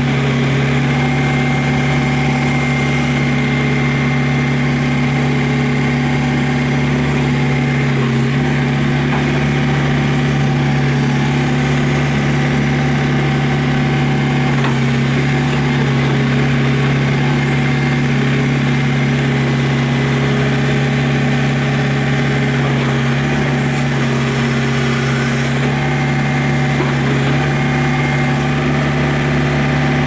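2005 John Deere 110 tractor loader backhoe's 43 hp diesel engine running at a steady speed while the backhoe boom and bucket are worked.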